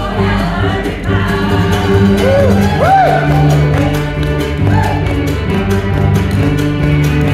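Acoustic string band of fiddle, cello, upright bass and a plucked mandolin-type instrument playing an old-time tune with voices singing. A few short sliding whoops come about two to three seconds in, over a steady chopped rhythm and bass notes.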